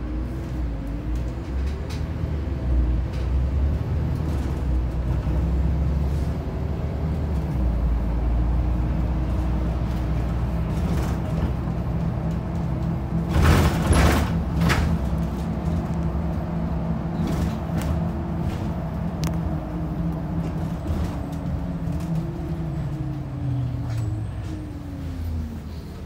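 Volvo 7700 city bus heard from inside while under way: the engine running steadily, its note rising and dipping with gear changes and falling near the end, with a few loud knocks and rattles about halfway through.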